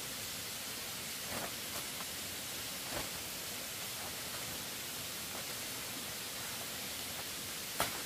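Steady, even hiss with a few faint clicks and one sharper click near the end.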